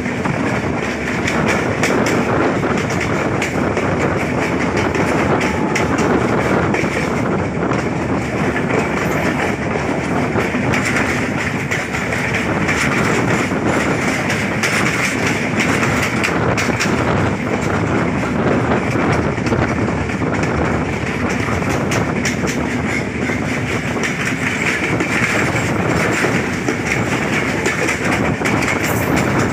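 A Sri Lanka Railways Class S13 diesel multiple unit running along the line, heard from an open door of the coach. It makes a steady loud rush of wind and running gear, with wheels clacking over rail joints throughout.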